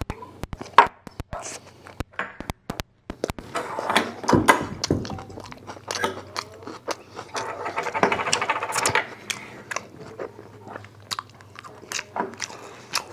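Close-miked chewing and mouth sounds: a man biting into and chewing a soft tortilla wrap filled with steak, kimchi and mashed potato. There are many sharp wet clicks and smacks throughout.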